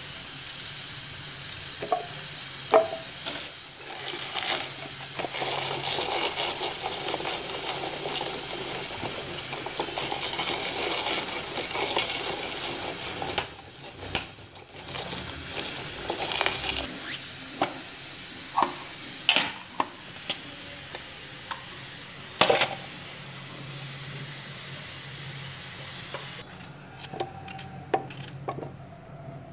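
A loud, steady high-pitched hiss runs under scattered clicks and knocks from a hand-operated vegetable chopper's steel blades cutting through onions. The hiss cuts off suddenly near the end.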